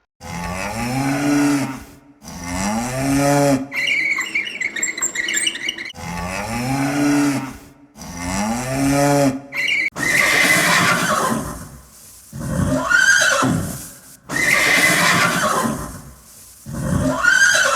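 Recorded farm animal calls: long low moos of a cow repeated several times, then a horse whinnying again and again from about ten seconds in.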